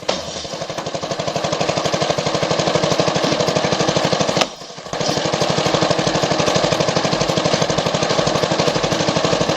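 Log splitter's small engine running with a rapid, even chugging of about ten beats a second. It breaks off for a moment about halfway through, then resumes.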